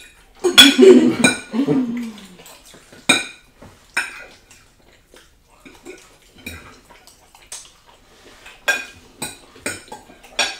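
Metal forks clinking and scraping on plates during a meal: scattered sharp clicks, a few louder ones near the end. A short voice sound, like a hum or brief vocal, is the loudest thing in the first couple of seconds.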